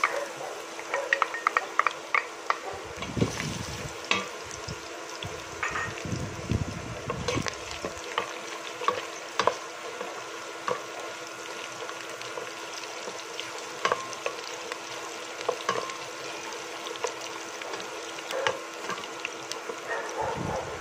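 Minced garlic sizzling in hot canola oil in a stainless steel pot, with many small pops, while a wooden spatula stirs and scrapes it around the pan.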